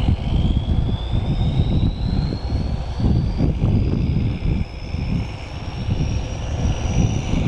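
GE 110-ton diesel-electric switcher locomotive running as it approaches slowly, with a high whine rising steadily in pitch over a low, uneven rumble.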